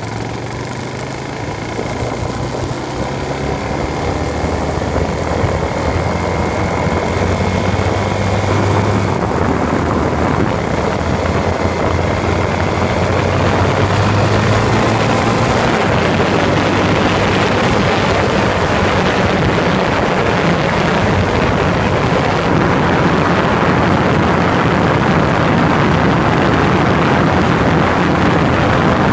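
Motorcycle engine running under way, with heavy wind rushing over the microphone. The wind noise builds over the first dozen seconds as speed picks up, then holds steady.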